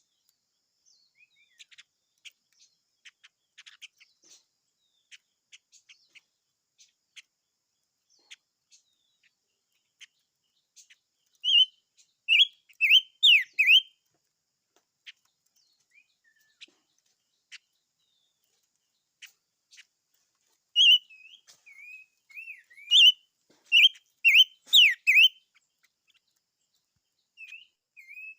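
A small songbird, the 'five-coloured bird' (chim ngũ sắc), singing: loud bursts of quick, whistled warbling phrases, first about 11 seconds in and again about 21 seconds in, with soft scattered clicks and chirps in between.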